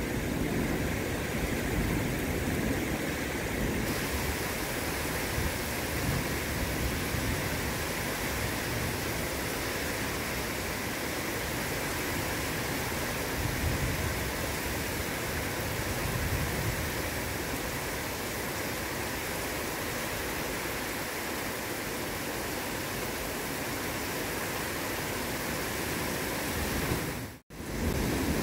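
Heavy rain pouring down in a steady, even hiss. The sound drops out for a split second near the end.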